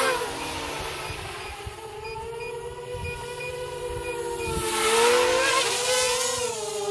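Quadcopter's electric motors and propellers whining in flight, the pitch wavering with throttle. The whine grows louder about five seconds in as the quad passes close.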